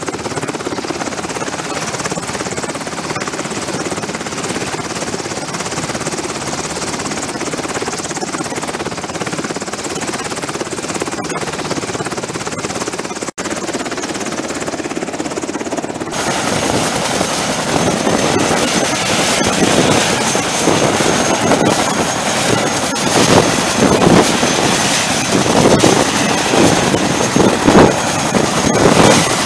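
Military helicopters running on the ground with rotors turning, a UH-60JA Black Hawk and a CH-47JA Chinook: a steady rush of rotor and turbine noise. About halfway through it grows louder and choppier, with a high steady whine on top.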